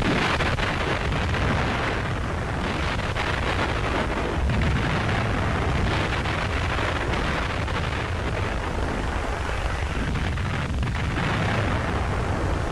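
Battle sound: a dense, steady din of explosions and gunfire with a heavy low rumble.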